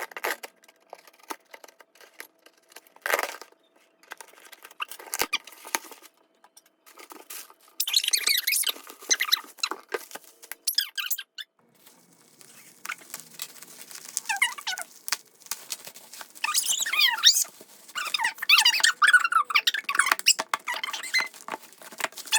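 Packaging being opened by hand: a cardboard box and the plastic shrink-wrap on music albums being pulled, torn and crinkled. It comes in irregular bursts with clicks, and the busiest stretches come about eight seconds in and again from about sixteen to twenty-one seconds.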